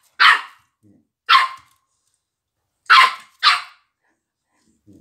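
A puppy gives four short, high-pitched barks, the last two close together, while pestering an older dog for its Kong.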